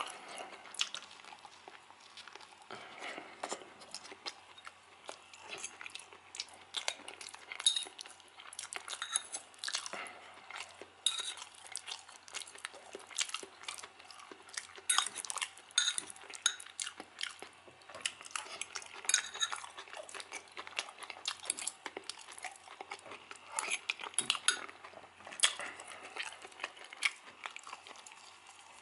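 Metal fork clinking and scraping against an enamel bowl in quick, irregular ticks as it scoops up mashed potatoes and liver.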